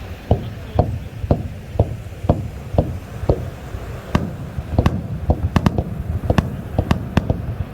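Fireworks display bursting: sharp bangs about two a second, then coming quicker and more irregularly from about four seconds in, over a low rumble.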